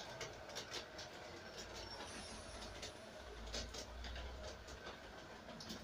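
LGB G-scale model train running on brass track, heard from on board: a faint steady rumble of the motor and wheels with scattered clicks as the wheels cross rail joints.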